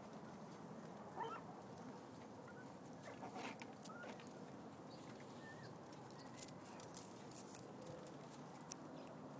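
Faint short squeaks and a few light taps from a Miniature Pinscher puppy nosing right up against the phone, over a steady faint hiss.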